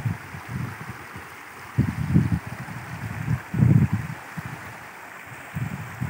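Floodwater flowing across a submerged road with a steady rushing hiss. Wind buffets the microphone in low rumbling gusts, the loudest sounds, at the start, about two seconds in, near four seconds and again near the end.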